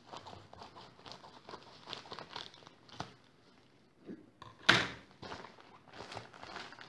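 Scissors snipping through a plastic courier mailer, with the crinkling and rustling of the plastic as it is cut and handled. About two-thirds of the way through comes one loud thump.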